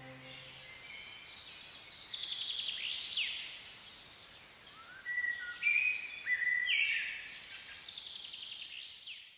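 Songbirds singing: quick high chirps and sweeping notes, then a string of short whistled notes that step up and down in pitch, over a faint hiss, cutting off abruptly. A held music chord fades out at the very start.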